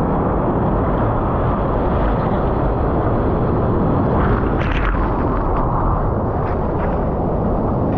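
Surf and whitewater rushing around a surfboard, picked up by a camera mounted low on the board's nose: a loud, steady, muffled rumble, with sharper splashes about four to five seconds in as whitewater washes over the board.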